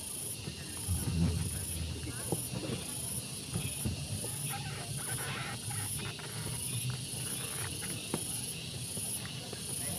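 Low murmur of a gathered crowd, with a few small knocks and a faint high-pitched chirp pulsing about twice a second.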